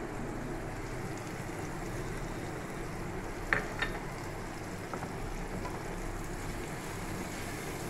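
Onions and tomato pieces frying in oil in a pan, a steady sizzle, with two sharp knocks of a wooden spatula against the pan about three and a half seconds in as stirring begins.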